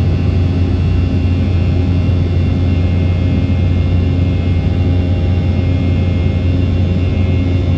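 Steady cabin noise inside an Embraer E190 airliner, whose twin GE CF34-10E turbofans and the airflow give a loud, unchanging low drone with a few faint steady higher tones.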